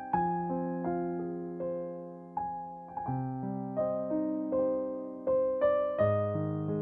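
Background piano music: a gentle melody of single struck notes, each fading away, over held lower chords.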